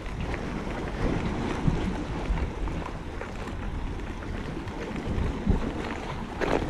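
Wind buffeting the microphone over the steady wash of the sea.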